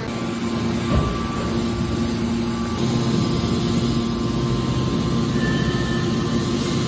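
Hydraulic scrap-metal baler running: a steady hum and whine from its hydraulic power unit, with a single clunk about a second in. The hum grows heavier and lower about three seconds in.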